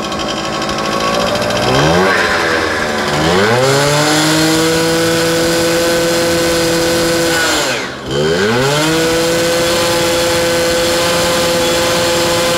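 Puch moped's two-stroke engine, with a bigger-than-stock cylinder and a 15 mm Bing SRE-type carburettor on a 75 main jet, revved up over the first few seconds to full throttle and held there, dipping briefly about eight seconds in before rising again and holding steady. It does not yet fully scream at the top end, which the mechanic takes as a sign the main jet is a size or two too big.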